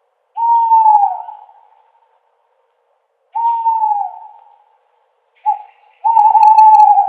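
An owl hooting: two slightly falling hoots about three seconds apart, then a short hoot followed at once by a longer one near the end, each trailing off in an echo.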